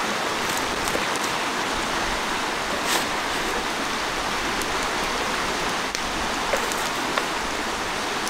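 Steady rushing of running stream water, with a few faint knocks.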